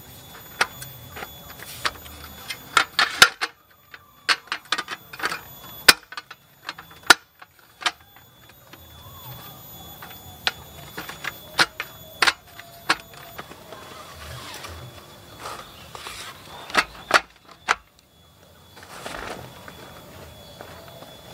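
Aluminium slats of a roll-up camping table clacking and rattling as the top is unrolled and pressed down onto its folding metal frame: a string of sharp clicks and clatters, some in quick runs, with short gaps between.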